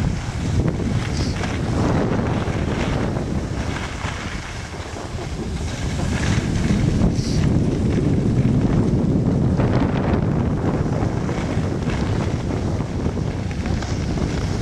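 Wind buffeting the microphone of a skier moving downhill, a steady rushing noise, with skis hissing and scraping over packed snow.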